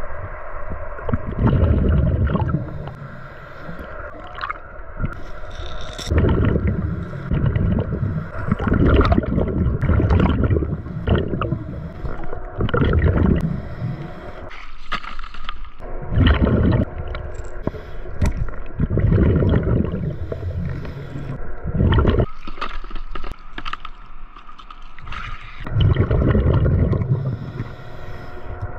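Scuba regulator breathing heard underwater: a loud gurgling rush of exhaust bubbles every few seconds, with quieter gaps between. A faint steady hum runs underneath.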